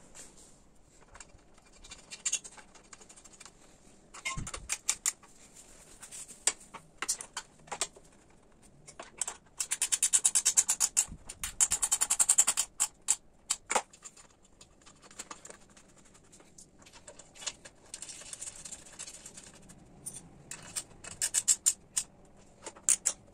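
Small metal clicks and rattles of hand tools and screws as a motorcycle's rear splash guard is screwed on and its four screws tightened, with a long run of rapid, even clicking near the middle and shorter clusters of clicks toward the end.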